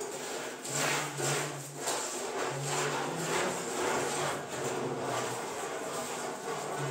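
Repeated rubbing strokes, about two a second, in a steady rhythm.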